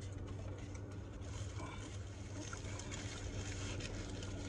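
Steady low hum of a car heard from inside the cabin, with scattered faint small clicks over it.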